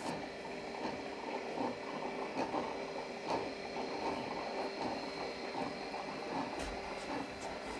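Three Elektra LBO rotating warning beacons running together, their rotator motors and gearing making a steady whir with a rapid, uneven mechanical rattle. They are on a low supply voltage with all three connected, so they turn slowly.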